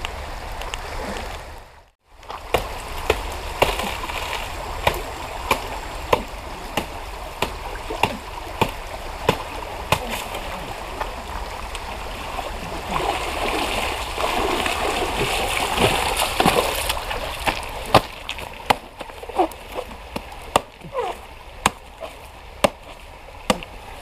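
Running river water, with scattered sharp clicks and taps several times a second. The sound drops out briefly about two seconds in and swells from about 13 to 17 seconds.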